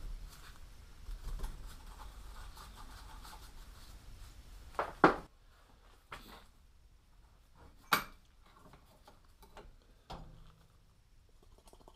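Metal parts and hand tools being handled at a bench vice: rubbing and fiddling as bolts come out of a pulley, then sharp metal clanks, a quick double one about five seconds in, which is the loudest, another near eight seconds and a softer one about ten seconds in.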